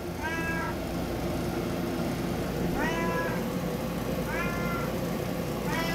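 Domestic cat meowing four short times, each call rising and falling in pitch, while its food is being opened.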